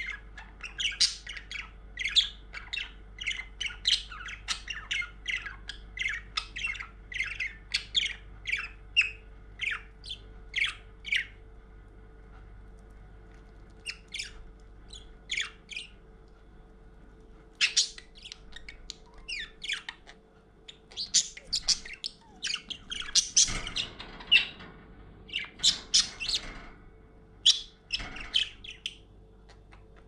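Budgerigar chattering: quick runs of short chirps and squawks, breaking off twice for a few seconds near the middle before starting up again, over a faint steady hum.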